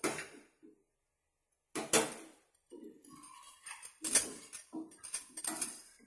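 Steel slotted spoon scraping and clinking against the metal wall of a pressure cooker while chicken pieces and spice powders are stirred. It is an irregular run of sharp clinks and scrapes with a short silent gap near the start, and the loudest clink comes about four seconds in.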